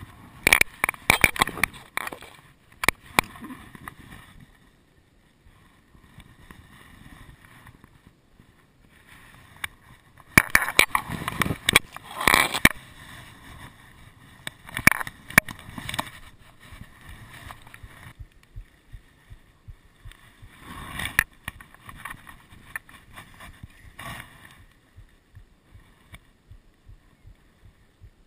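Grass and reeds rustling and brushing against a body-worn camera as the wearer moves through them, in several bursts with quieter spells between, and a few sharp clicks of handling.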